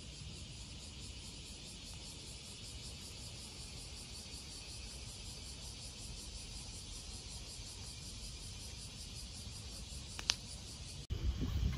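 Steady chorus of insects, a high, even drone with a faint pulsing. A single short sharp click sounds near the end. Then the sound cuts to a louder low rumble.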